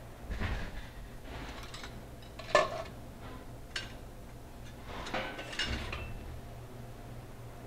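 Metal pans and kitchen utensils being handled, clinking and scraping. The loudest is a sharp clank about two and a half seconds in. Lighter clinks follow, then a ringing metallic scrape about five seconds in.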